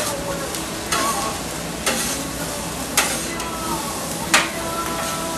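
Metal spatulas striking and scraping a steel flat-top griddle about once a second, chopping and stirring fried rice, over a steady sizzle of the rice frying.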